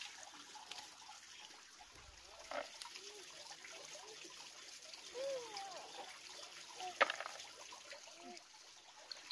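Dry peanut plants rustling and pods crackling as they are plucked off the stems by hand, with a sharp snap about seven seconds in. A few short gliding vocal sounds come in among them.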